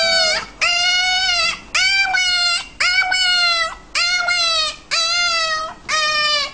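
Puppy howling in a steady string of long, high-pitched howls, about one a second, seven in all.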